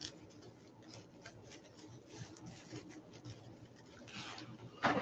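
Faint rustling and scattered light clicks of hands handling craft materials, zip ties and deco mesh, with a louder rustle near the end.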